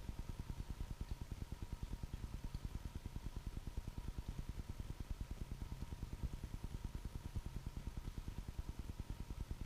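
A low engine or motor running steadily, pulsing regularly about eight times a second, with a faint steady whine above it.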